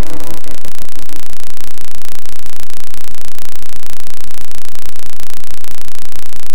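Loud, harsh static-like noise with a rapid, even flutter and no clear pitch.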